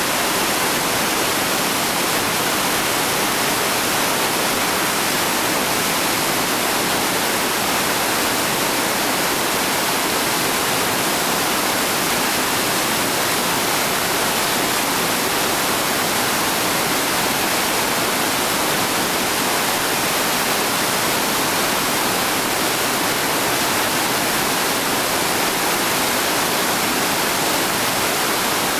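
Whitewater rapids rushing over boulders: a steady, unchanging wash of moving water.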